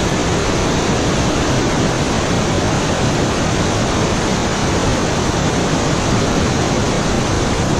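White-water river rapids rushing steadily and loudly, the camera right in the cascading water.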